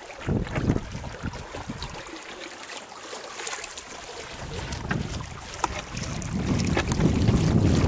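Water rushing and splashing along a small plywood sailing hull and its PVC-pipe float as the boat moves, with wind buffeting the microphone; the low wind rumble grows loud near the end.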